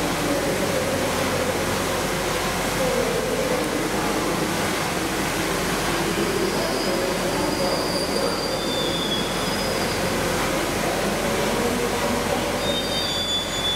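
Steam locomotive 60163 Tornado, a Peppercorn A1 Pacific, standing at the platform with a steady, loud hiss of steam under the station roof. A few faint high tones come and go in the second half.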